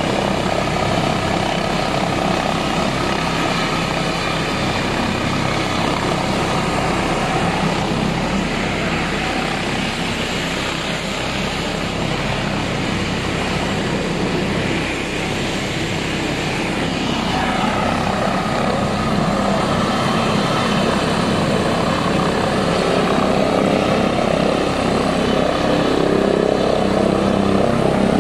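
Helicopter with a shrouded (fenestron) tail rotor running on the ground: a steady turbine whine over rotor noise, growing louder through the second half.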